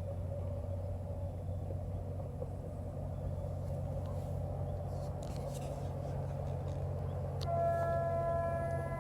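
GM diesel locomotive engine running with a steady low drone. About seven and a half seconds in, a locomotive air horn starts sounding a held chord of several steady tones.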